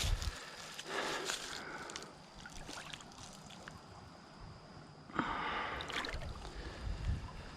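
Creek water splashing and sloshing in a few short bursts as a freshly caught northern pike is handled in the shallows.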